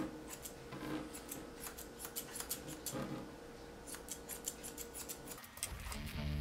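Grooming shears snipping through the wig hair of a dog model, a steady run of crisp snips at about three a second. Near the end it cuts to rock music with electric guitar.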